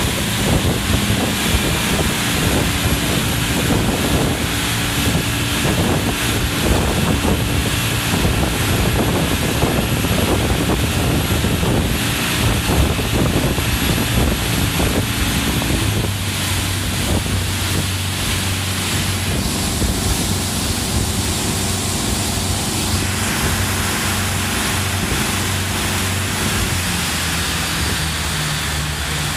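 Boat engine running at speed, with water rushing and splashing against the hull and wind buffeting the microphone. About halfway through, the splashing eases and a steadier engine hum is left.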